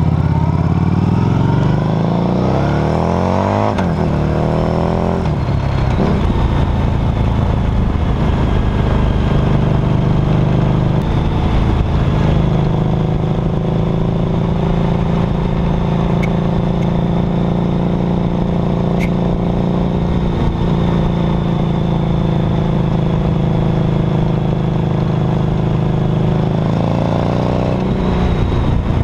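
2008 Harley-Davidson Night Rod Special's liquid-cooled V-twin engine and exhaust, heard close from the rear footpeg while riding. It accelerates hard through the gears in the first few seconds, the pitch climbing twice with a drop between, then runs steadily at cruising speed and revs up again near the end.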